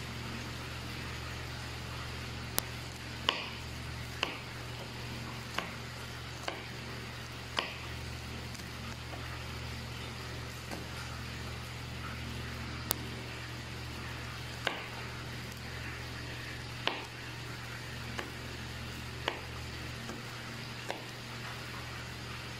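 Chicken frying in hot oil: a faint steady sizzle with sharp pops every second or two, over a steady low hum.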